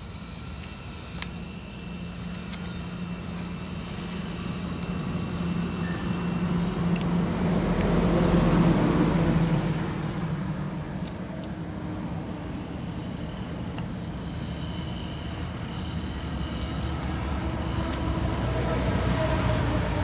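A motor vehicle's engine hum passing by, swelling to its loudest about eight or nine seconds in and fading, then rising again as another pass comes near the end. A couple of faint knife clicks come in the first few seconds.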